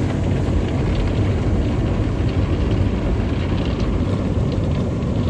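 Soft-touch automatic car wash working over the car, heard from inside the cabin: foam and water sheeting and spraying across the glass in a loud, steady rumbling rush.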